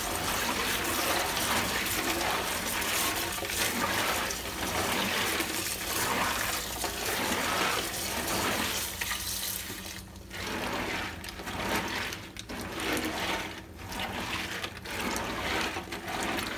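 Tap water running in a thin stream into a pot of raw in-shell peanuts as they are washed. About ten seconds in the stream stops, and a hand swishes and rubs the peanuts through the water in repeated surges.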